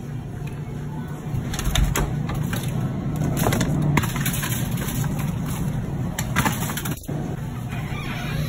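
Supermarket freezer-aisle ambience: a steady low hum with scattered clicks and knocks from a glass freezer door and phone handling.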